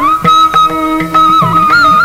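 Carnatic-style instrumental music: a held melody line with gliding ornaments over repeated drum strokes whose pitch falls after each hit.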